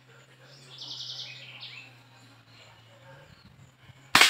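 A bird sings a quick trill of rapidly repeated high notes that steps down to a few lower notes. Near the end comes a single sharp shot from a homemade .25-calibre (6.35 mm) PCP air rifle, the loudest sound, with a short fading tail.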